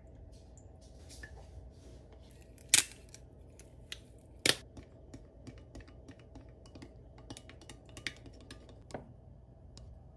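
Clear plastic spoon clicking and scraping against a glass measuring cup while stirring thick yogurt dressing: two sharp clacks a couple of seconds apart, then a run of lighter, irregular clicks.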